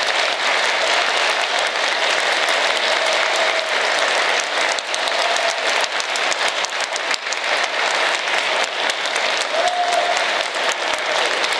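Audience applauding steadily after a symphonic band piece ends.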